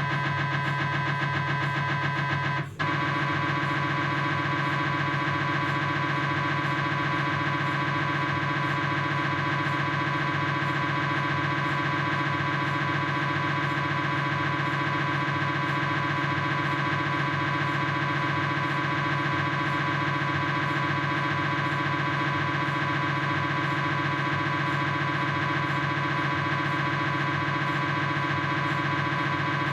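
Philips 1.5 T MRI scanner's gradient coils buzzing with a steady, rapidly pulsing tone as a proton-density fat-suppressed sagittal (SPIR) knee sequence runs, with one brief break about three seconds in.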